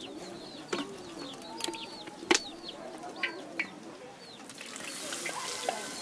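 Chickens clucking and small birds chirping, with a few sharp knocks; a steady hiss swells in about four and a half seconds in.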